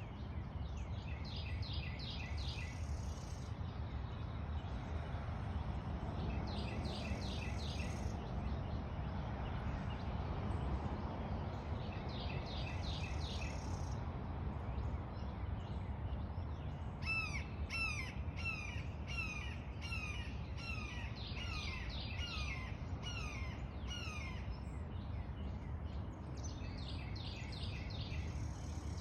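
Birds calling: short bursts of rapid high notes every few seconds, and in the middle a long series of repeated downward-sliding calls, about two a second. A steady low background noise runs underneath.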